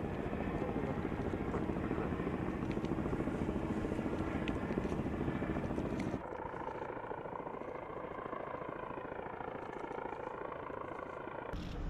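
Steady engine drone, loud in the first six seconds; after a cut about six seconds in it drops to a quieter, steady engine sound with a slowly wavering pitch.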